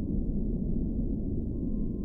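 Ambient soundscape: a deep, dark, steady drone with a faint thin high tone held above it.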